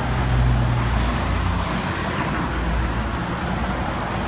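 Street traffic: a steady rumble of passing cars, loudest about half a second in.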